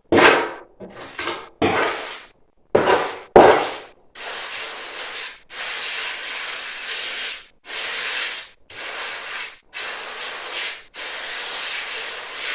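Gritty scraping of a perlite-laden refractory mix being scooped and worked with a hand tool: a few sharp strokes, then a run of long scrapes, each about a second, with short pauses between.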